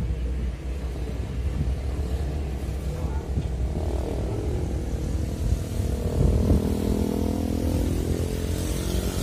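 Diesel dump truck engine running as the truck drives up close. Its engine note comes in about three to four seconds in and grows louder, over a steady low rumble.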